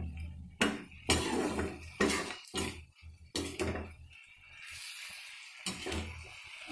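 A perforated steel spoon knocking and scraping against a kadhai as potatoes and pointed gourd are stirred in masala, about two strikes a second. From about four seconds in, a steady sizzle of frying takes over, with a few more knocks.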